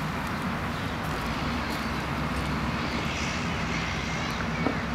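Homemade wind-powered instrument with its propeller turning in the breeze, giving a steady whirring rumble mixed with wind noise on the microphone.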